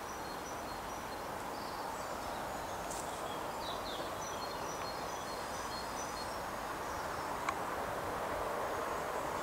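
Steady outdoor background noise, an even hiss that grows a little louder toward the end, with a few faint high chirps and a single click a little past seven seconds in.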